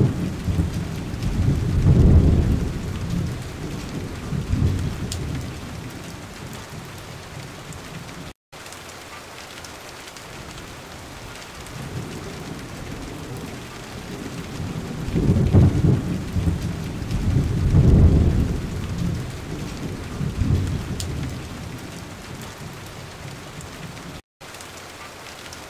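Rain-and-thunder ambience: steady rain with two long low rolls of thunder, one at the start and another a little past halfway. The sound cuts out for an instant twice, about a third of the way in and near the end.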